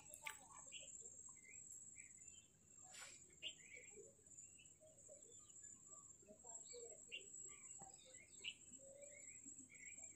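Near silence: faint scattered bird chirps over a steady high-pitched insect-like buzz, with a couple of faint clicks.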